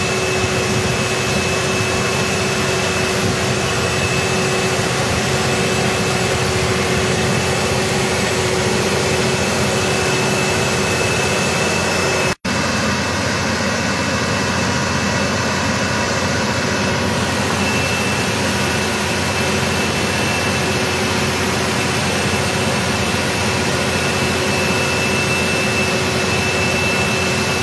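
Large tractor engine running steadily while pulling a wide seed drill: a continuous drone with a thin high whine and a lower hum over it, broken by a brief dropout about twelve seconds in.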